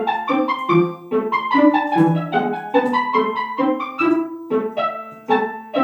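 Background music: a bright, fast run of piano-like notes, several per second, in a steady rhythm.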